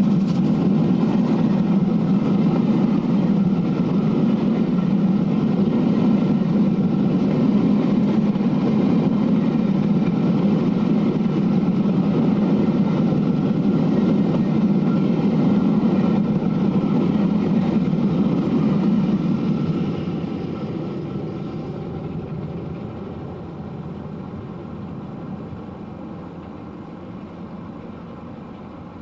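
A steam-hauled passenger train running past at speed: a steady, loud rumble of the coaches rolling on the rails behind the locomotive. It fades away from about twenty seconds in as the train draws off into the distance.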